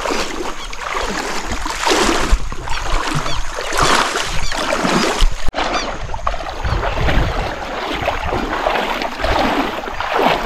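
Water sloshing and swishing around a person's legs as they wade knee-deep through floodwater, swelling in repeated surges with the strides.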